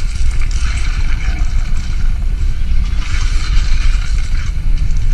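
Action-movie battle sound effects playing on a Samsung Galaxy A11: a dense, continuous rumbling and crashing din with heavy low rumble and no clear speech.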